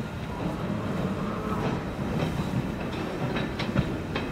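Izuhakone Railway ED3-3 electric locomotive rolling slowly over the station pointwork: a steady low rumble, with the wheels clicking over rail joints and switches. A quick run of sharp clicks comes near the end.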